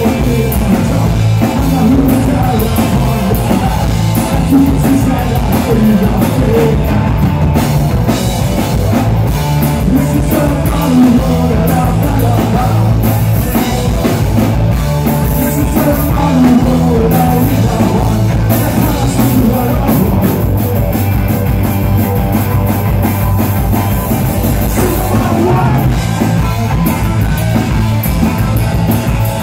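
Three-piece rock band playing loud live: electric guitar, Rickenbacker-style bass guitar and drum kit.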